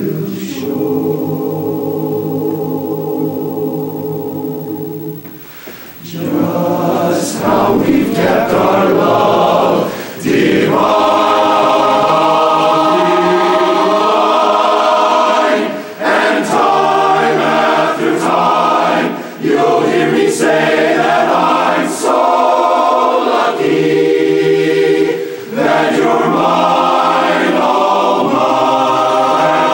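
Men's barbershop chorus singing a cappella in close harmony. A held chord softens and dies away about five seconds in, then the full chorus comes back louder from about seven seconds, with brief breaths between phrases.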